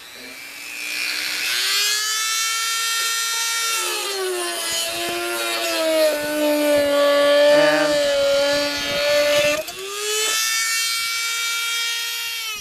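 Dremel rotary tool running at high speed, its whine sinking in pitch while it cuts into the plastic header panel and rising again as it comes free about ten seconds in, with light ticking from the bit against the plastic.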